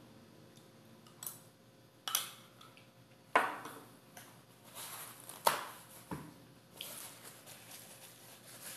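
Metal spoon clinking in a glass dessert cup and the glass knocked down onto a stone countertop: a few sharp clinks and knocks, the loudest about three and a half seconds in. A soft rustle of a paper napkin follows near the end.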